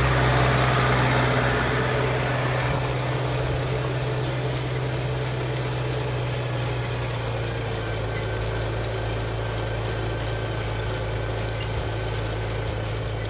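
Tractor engine running at a steady speed, a continuous low hum with a broad rumble over it, a little louder in the first couple of seconds.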